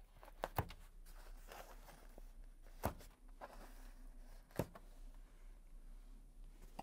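Quiet handling rustle with a few sharp snips as the cords tied around a rolled foam mattress are cut: a quick pair near the start, then single snips about three and four and a half seconds in.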